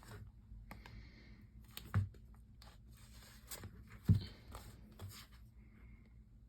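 Packaging being handled: soft rustling with two sharp knocks about two and four seconds in, the second the louder.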